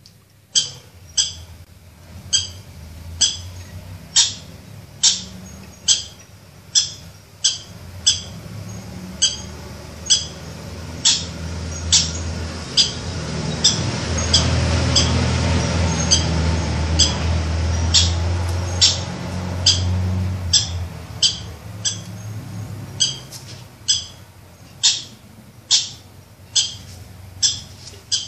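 Recorded husky puppy squeals played through a smartphone speaker: short, high-pitched yelps repeating about once a second. A louder low rumbling noise swells up in the middle.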